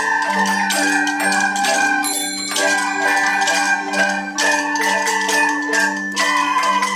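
Background music with mallet-percussion notes in a steady rhythm, marimba-like in tone.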